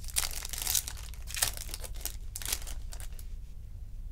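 Foil trading-card pack wrapper crinkling and tearing open in dense, sharp crackles, which thin out to faint rustles of cards being handled about three seconds in. A steady low hum runs underneath.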